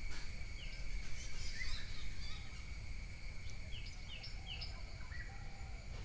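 Outdoor insect chorus of crickets as a steady, high-pitched trill, with a bird giving short falling chirps, several in quick succession past the middle.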